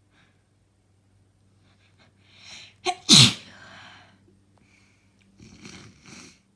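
A person sneezing once: a breathy wind-up, a short catch, then one loud sneeze about three seconds in that trails off into breath. Two softer breaths or sniffs follow near the end. The uploader puts these sneezes down to hours of crying.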